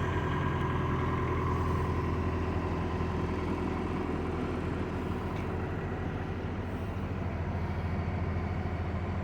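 Heavy truck's diesel engine running steadily, a low even drone.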